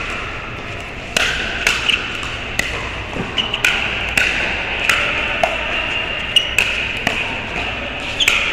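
A pickleball rally: a dozen or so sharp pops of paddles hitting the hollow plastic ball, at an uneven rally rhythm. They sound over the steady din of a busy indoor court hall.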